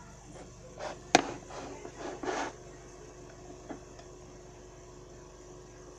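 Knife and plastic tray handled while a cream-filled sponge roll is sliced: a sharp knock about a second in, then about a second of scraping and rubbing, and a faint click later. A faint steady hum sits underneath.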